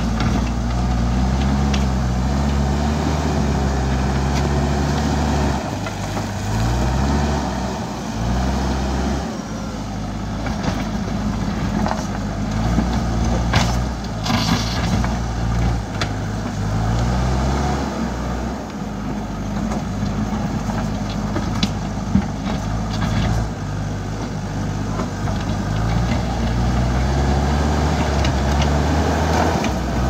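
JCB 3DX backhoe loader's diesel engine working, its pitch going up and back down several times as the front bucket pushes dirt and rock, with a few sharp knocks of rock against steel around the middle.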